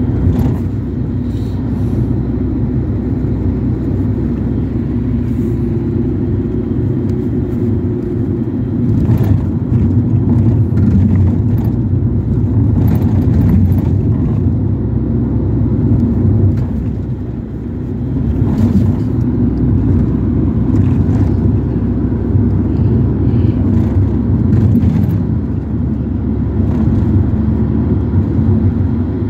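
Ford Transit heard from inside the cabin while on the move: steady engine and road rumble, with a few short knocks and rattles. The rumble dips briefly about seventeen seconds in, then picks up again.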